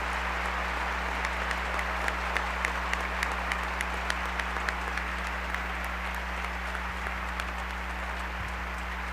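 Audience applauding, the clapping gradually thinning and growing softer, over a steady low electrical hum.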